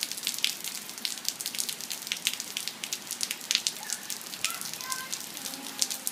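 Rain pattering in scattered drops, a steady hiss with irregular sharp drop hits several times a second, as a summer shower eases off.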